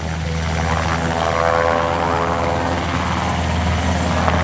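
UH-60J Black Hawk rescue helicopter flying low past, its rotor beating steadily. A turbine and tail-rotor whine over the rotor bends in pitch as it passes, and the sound grows louder over the first second or so.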